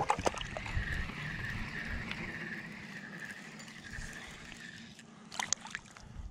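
Spinning reel being wound in, a faint whir pulsing with each turn of the handle. A few sharp clicks come about five seconds in. Light water sloshing underneath.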